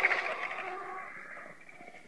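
The tail of a vulture's harsh call, trailing off and fading away over about a second and a half.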